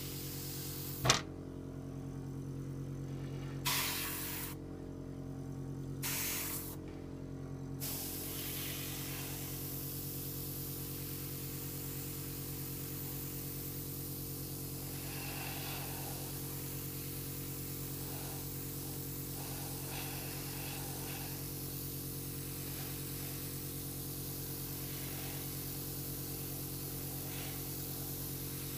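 Airbrush spraying paint: short bursts of hiss at first, then a steady continuous hiss from about eight seconds in, over a steady low hum. A sharp click about a second in.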